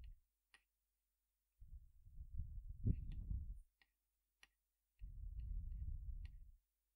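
Faint, scattered sharp clicks from a computer mouse or trackpad while code is scrolled and selected. Two stretches of low rumble come with them, one from about one and a half seconds in to three and a half, and one from five seconds in to six and a half.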